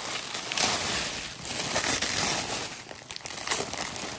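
Tissue paper rustling and crinkling in uneven swells as hands peel it back and unwrap it, with a clear plastic bag crinkling as it is handled near the end.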